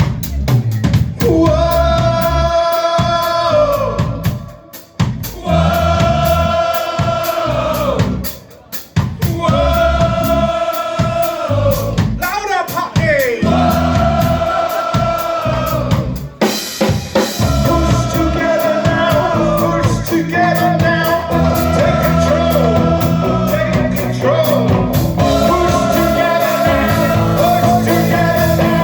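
Live rock band playing a song: drum kit with long held sung notes in repeated phrases. The playing fills out and runs on without breaks from about halfway through.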